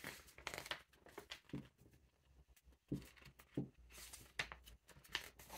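Faint rustling of magazine pages being handled and turned by hand: a few short, scattered rustles and soft paper ticks.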